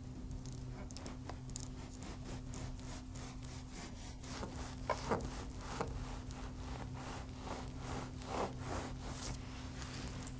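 Serrated bread knife sawing back and forth through a baked sponge cake, a run of soft rasping strokes about three a second.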